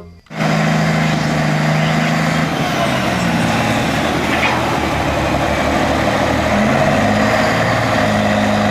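Heavy diesel engine of a mining haul truck running steadily, with a low drone whose pitch shifts a little now and then. It cuts in abruptly just after the start.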